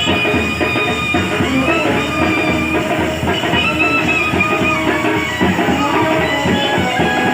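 Loud music with a steady drum beat under sustained melodic instrument lines.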